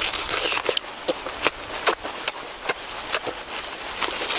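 A person biting and chewing cooked octopus, with irregular sharp smacking clicks of mouth and teeth, several a second.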